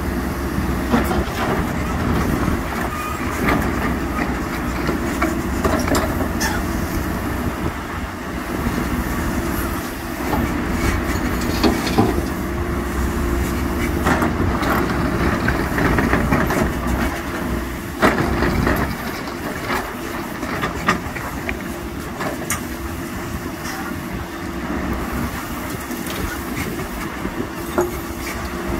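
Diesel engine of a heavy construction machine running steadily, with scattered metallic knocks and clanks from the working machine.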